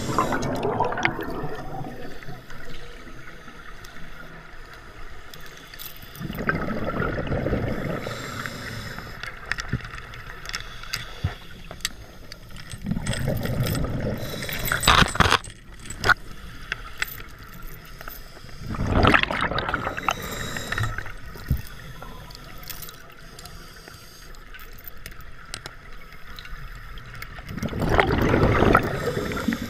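A scuba diver's regulator breathing underwater: exhaled bubbles gurgle and rumble past in loud bursts about every six to seven seconds, with quieter water noise between breaths.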